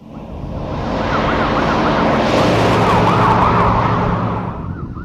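Toyota pickup truck passing at high speed with a rapid warbling siren on its loudspeaker. Tyre and road noise swells to a peak about three seconds in and then eases, largely drowning the siren, which is the siren's pitch compared on approach and going away (Doppler effect).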